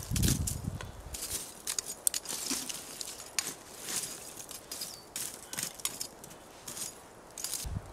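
Metal tongs shifting burning logs and raking through the charcoal of a campfire, giving irregular scrapes, clinks and crackles. A dull thump in the first second as a log is set down, and another short knock near the end.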